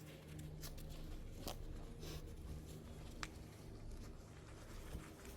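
Faint rustling and scattered light ticks, as of dry weeds and soil being handled, with one sharper tick about three seconds in, over a faint low steady hum.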